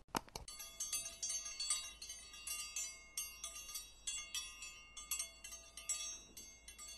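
A couple of quick clicks, then a sound effect of metallic chimes struck many times in quick succession, tinkling and ringing over one another without a pause.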